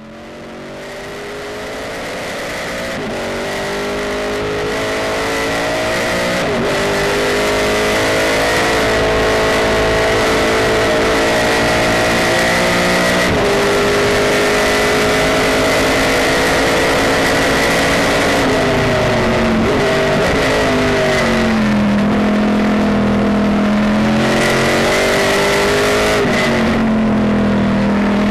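Pontiac GTO race car's V8 engine heard from inside the cockpit, running hard at high revs; the pitch climbs and drops sharply with each gear change, dipping and climbing back as the car brakes and downshifts for corners. A steady high whine sits over the engine note, and the sound fades in over the first several seconds.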